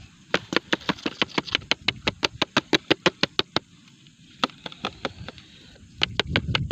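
Rapid series of sharp plastic clicks and taps from handling a clear plastic bottle that holds a cobra, about six a second for some three seconds, then a few more near the end.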